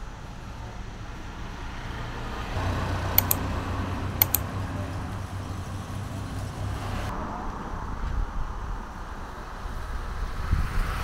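Roadside traffic ambience: a vehicle passes in the middle, with its low rumble swelling and then fading. Two pairs of sharp clicks come about a second apart while it goes by.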